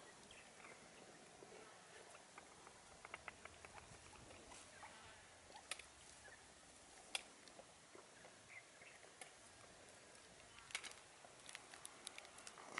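Faint, scattered taps and clicks of bamboo partridges pecking and stepping about on wet stone paving, over near silence.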